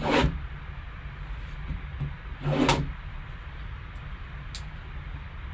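Plastic shrink-wrap on a sealed trading-card box being slit and torn with a cutter: two short, sharp crinkling rips, one at the start and one about two and a half seconds in, over a low steady hum.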